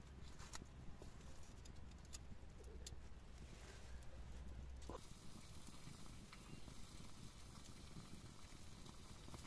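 Faint crackling of a small wood fire, a few scattered sharp clicks over a quiet background in the first half.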